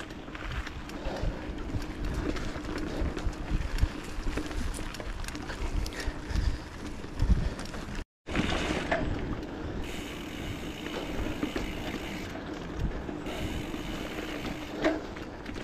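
Mountain bike riding along a dirt trail: rolling tyre noise with rattles and knocks from the bike over bumps, and wind buffeting the microphone. The sound cuts out for an instant about eight seconds in.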